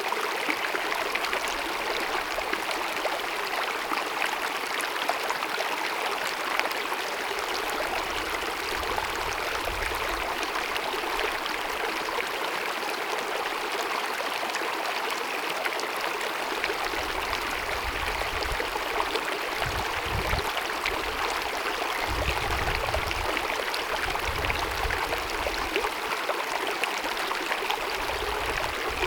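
Glacier-fed mountain meadow stream babbling steadily, an even rush of running water.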